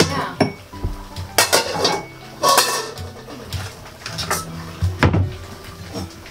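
Kitchen clatter: steel pots, dishes and cutlery knocking and clinking in a string of sharp knocks and scrapes, with a steel cooking pot stirred with a wooden cooking stick.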